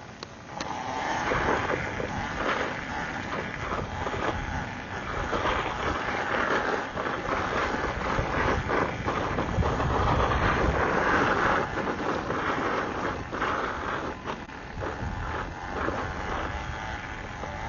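Electric dirt bike under way, wind rushing over the rider's microphone with tyre and drivetrain noise underneath; it gets louder about a second in as the bike sets off.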